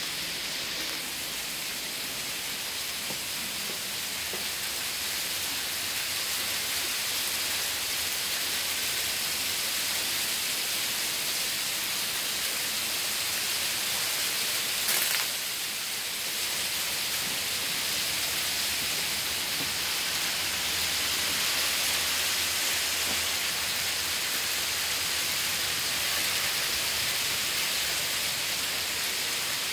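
Hail falling steadily, a dense hiss of hailstones striking the roof shingles and the ground, with one brief sharp knock about halfway through.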